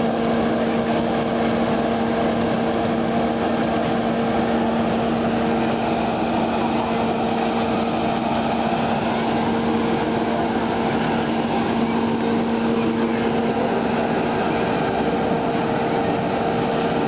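Small gasoline engine of a Hurst hydraulic rescue-tool power unit running steadily at a constant speed, pumping fluid through the hoses to the tool working on the car's door.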